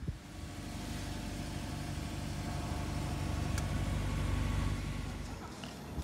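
A car engine running, growing louder to a peak about four and a half seconds in, then fading.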